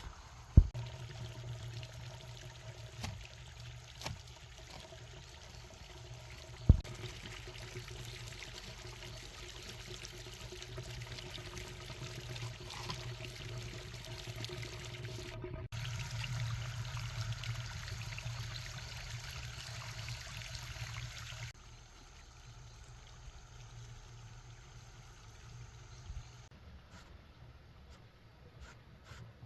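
Water pouring and trickling for a stretch that cuts off suddenly, preceded by a few sharp knocks, two of them loud.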